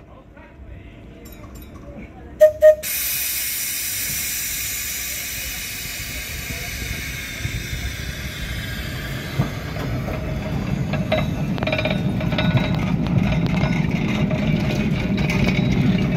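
Tram bell rung twice, the two-bell signal to start, then a sudden loud hiss of air from tram 619 that slowly fades. After that the tram moves off: a low rumble of wheels on the rails with scattered clicks, growing louder as it passes.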